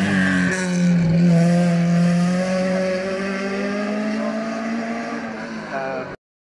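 A rally-prepared hatchback's engine running hard as the car passes and pulls away up a hill-climb course. Its note dips in pitch as it goes by, then holds steady, and cuts off suddenly near the end.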